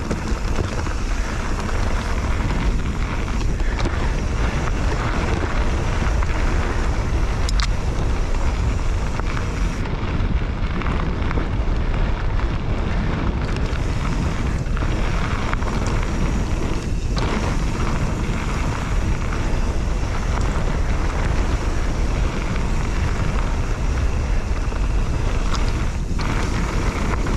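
Wind buffeting a GoPro 9 action camera's microphone during a fast mountain-bike descent, over a steady rush of tyres rolling on a loose gravel trail and the bike rattling. A couple of sharp knocks stand out, one near the middle and one near the end.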